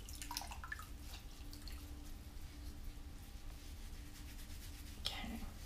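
Potter's wheel motor running at about medium speed with a steady low hum, with a few faint wet drips and clicks in the first second or so.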